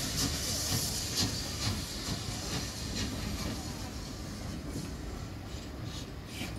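Steam locomotive moving slowly under steam, with a steady hiss and soft rhythmic exhaust puffs about two a second.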